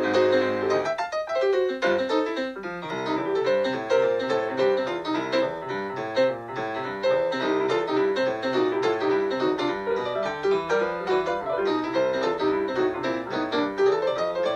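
Background music led by piano, a steady stream of quick notes.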